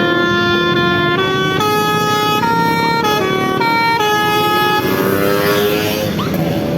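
Basuri V3 'telolet' multi-tone bus horn playing a quick tune of stepped notes. Near the end the tune gives way to a rising, gliding tone.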